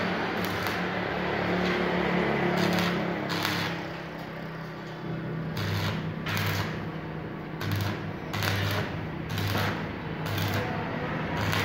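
Electric arc welding on a mild-steel gate frame: the arc gives a steady crackling hiss, with a low welding-machine hum that swells in short pulses from about halfway on.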